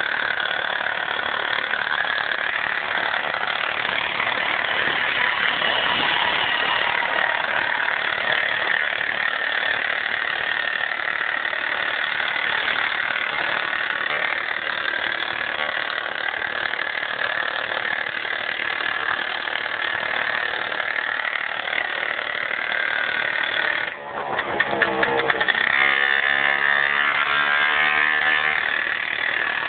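Piaggio Ciao moped's single-cylinder two-stroke engine running hard through a long custom-built exhaust pipe while riding, a loud, steady, high-pitched buzz. Near the end the sound breaks off briefly, then comes back at a lower note that climbs as the engine revs.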